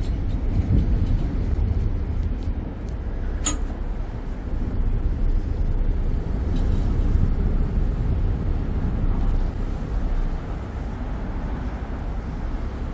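A passenger ferry's engine rumbles steadily underway, deep and low. A single short, sharp high click cuts through about three and a half seconds in.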